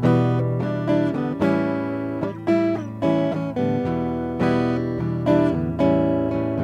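Acoustic guitar picked through an Artec MSP 50 pickup: strummed and plucked chords with notes left ringing, a new attack about every half second.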